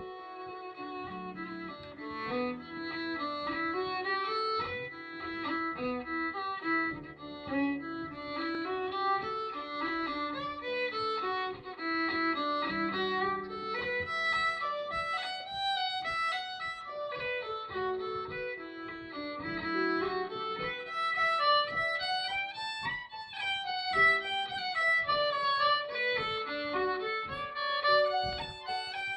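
Live Irish traditional music: fiddles play a quick, ornamented melody with harp accompaniment.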